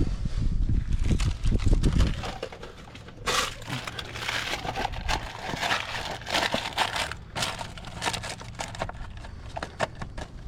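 Low rumbling handling noise for about two seconds, then a long stretch of close crinkling and crackling, like something being handled and crumpled.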